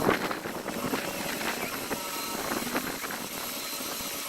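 Heavy equipment diesel engine running steadily during lifting work, with a few sharp knocks and clanks, the loudest right at the start.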